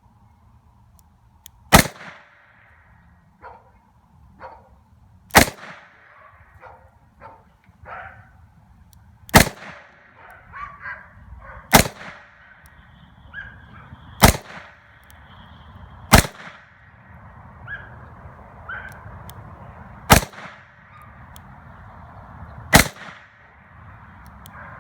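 Smith & Wesson 929 Performance Center 9mm revolver fired eight times, one shot every two to four seconds, with 115-grain reloads. Fainter knocks come between the shots.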